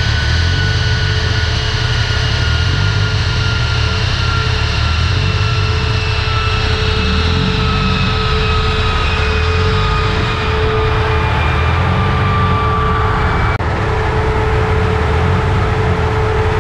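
Prepared Peugeot 106 S16 on a chassis dyno, its 16-valve four-cylinder and the dyno running loud with a heavy low rumble. Several whining tones slide slowly down in pitch, and a steady higher whine holds underneath. About three-quarters of the way through, the sound suddenly loses its top end.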